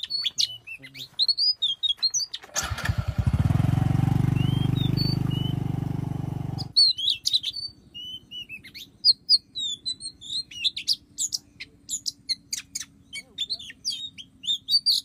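Oriental magpie-robins (kacer) singing: quick, sharp rising and falling whistles and chirps throughout. From about two and a half seconds in, a loud engine runs for about four seconds and stops sharply, leaving a faint low hum under the birdsong.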